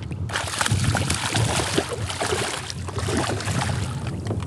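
Water splashing and lapping around a kayak, over a steady low rumble of wind on the microphone. The splashing sets in strongly about a third of a second in.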